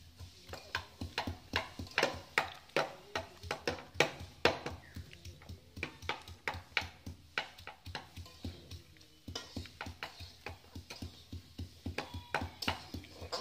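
A hand-held stone pounding on a round wooden board to crush food: steady, even knocks at about three a second, each a dull thud with a sharp click.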